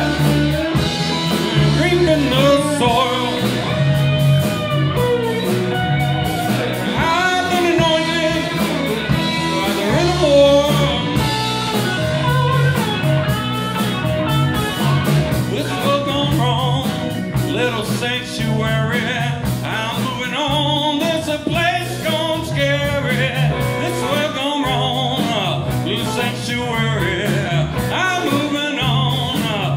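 Live blues-funk band playing: electric slide guitar in gliding lines over bass guitar, drums and keyboards, with a steady repeating bass line.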